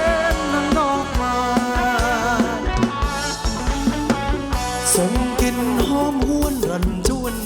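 Thai ramwong dance music from a live band: a drum kit keeps a steady beat under an instrumental melody, with no singing.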